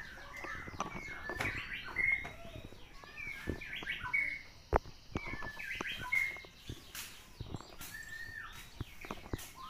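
Small birds chirping over and over, several at once at times, with scattered light clicks and taps.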